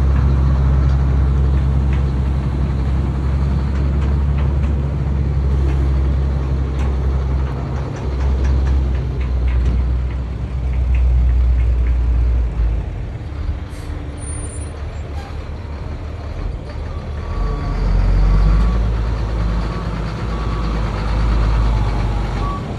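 Diesel engine of a GMC C8500 tandem-axle dump truck running as the truck drives, its low note rising and falling with the throttle and easing off for a few seconds mid-way. A faint backup alarm beeps near the end.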